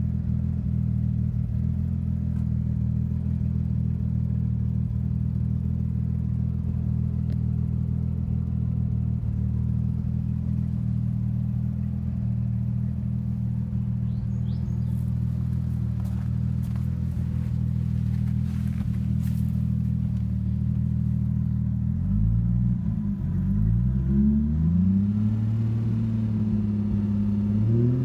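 TVR S Convertible's engine idling steadily, then revved in several quick blips over the last six seconds, rising and falling in pitch.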